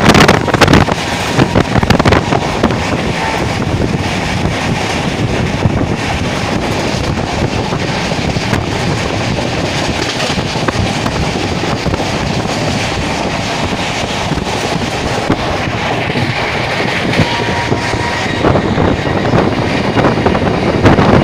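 Passenger train running at speed, heard with the microphone held out of the open window: a steady rush of wheels on rails and passing air, a little louder and choppier in the first few seconds.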